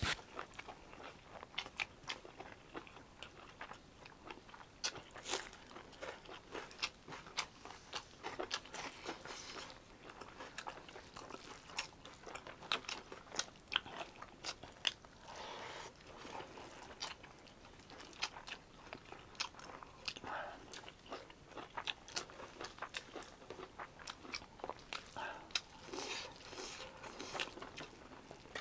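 A person eating close to the microphone: wet chewing with many irregular short clicks and smacks of the mouth, working through mouthfuls of pork curry and rice.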